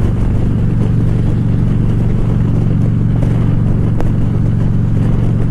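2014 Harley-Davidson Ultra Classic Limited's V-twin engine running at a steady cruise, with a steady drone and road and wind noise, and one brief click about four seconds in.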